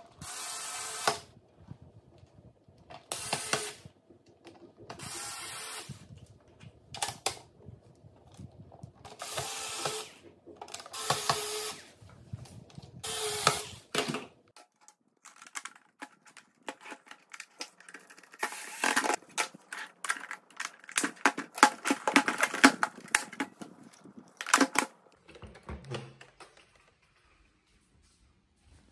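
Bosch cordless screwdriver running in six short bursts of about a second each, driving screws into the robot vacuum's casing. After that comes a dense run of plastic clicks and rattles as parts are handled and fitted.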